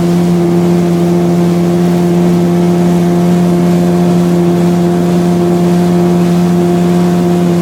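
50 hp Mercury outboard motor running at a steady high speed, near its top speed of about 30 miles an hour, its engine note holding one even pitch.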